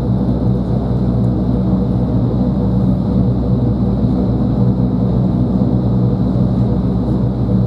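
Vertical wind tunnel's fans driving air up through the flight chamber at flying speed: a steady rush of air with a constant low hum.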